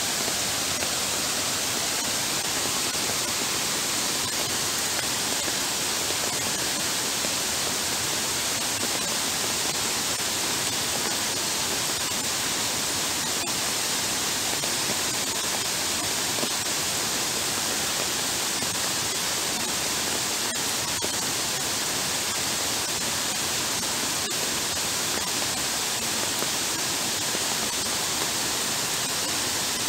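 Heavy downpour and floodwater running over a paved path: a steady, even hiss with no break.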